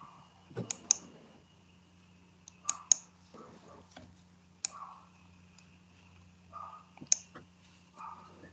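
Computer mouse clicking, several sharp clicks, some in quick pairs, over a faint steady electrical hum.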